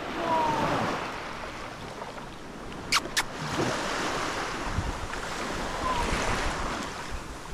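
Shallow sea water washing and lapping at a sandy shore, with wind buffeting the microphone. Two sharp clicks come about three seconds in.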